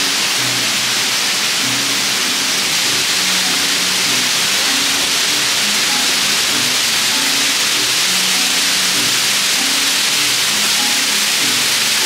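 Waterfall rushing in a steady, even hiss, with background music of short, low notes playing over it.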